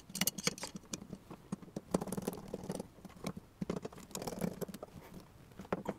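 A screwdriver tightening a screw into a long metal camera baseplate while the rig parts are handled, giving an irregular run of small clicks, ticks and scrapes.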